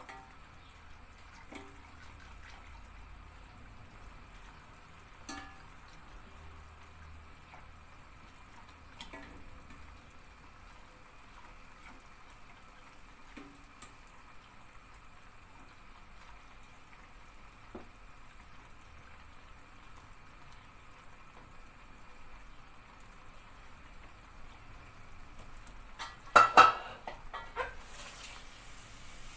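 Wire whisk stirring milk pudding in a metal pot, with light clinks of a ladle against a steel saucepan as syrup is ladled out. Near the end, a sudden loud metallic clatter of the pan and ladle.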